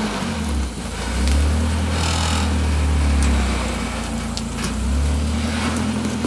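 Rock crawler's engine revving hard under load as it climbs a steep rock ledge in second gear, with one transfer case in low range; the revs ease off about four seconds in and come back up. A few sharp clicks and crunches from tyres and rock ride over it.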